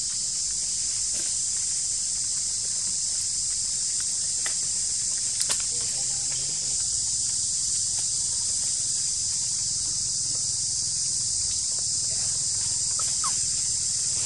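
Steady high-pitched drone of a forest insect chorus, unchanging throughout. A couple of sharp clicks sound about five seconds in, and a short chirp near the end.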